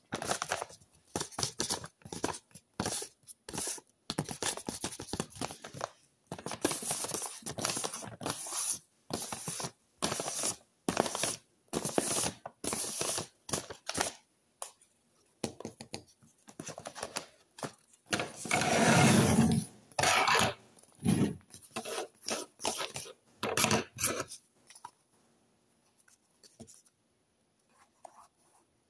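Paper rustling and crinkling as a paper envelope and paper cone fake nails are handled and shaken close to the microphone, in many short bursts with a longer, louder stretch about two-thirds in, then dying down to a few faint sounds.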